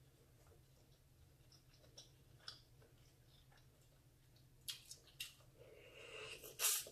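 Quiet eating sounds over a faint low steady hum: a few soft wet clicks as a sauce-coated shrimp is handled, then near the end a short loud wet smack as it is taken into the mouth.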